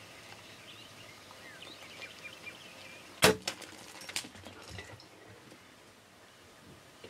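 A bow shot at a feral hog: one sharp crack of the bowstring and the broadhead-tipped arrow striking about three seconds in, followed by a few quick snaps and rustles as the hogs bolt. Faint bird chirps before the shot.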